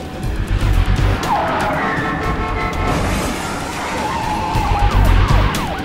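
Film soundtrack of a car driving, with tires squealing about a second in and several more times near the end, over background music with heavy bass pulses.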